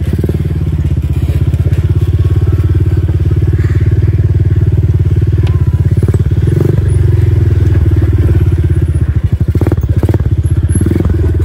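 ATV engine running steadily under throttle while being ridden, a fast even putter with little change in pitch. A few brief knocks or clatters come in about nine to ten seconds in.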